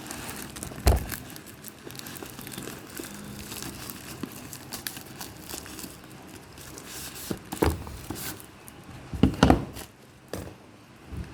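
Plastic packaging crinkling and rustling as it is handled and opened, with a few knocks: one about a second in, one past the middle and two close together near the end.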